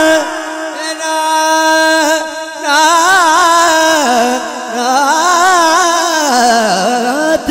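A solo male voice singing a Punjabi devotional naat into a microphone, wordless at this point: he holds one long note for about two and a half seconds, then winds through ornamented runs that wander down in pitch near the end.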